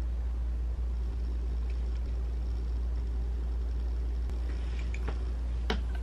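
Steady low electrical hum with no other loud sound; a couple of faint clicks come about five seconds in.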